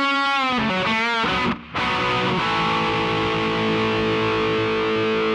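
Outro music on distorted electric guitar: a quick run of changing notes, a brief break, then one long held chord.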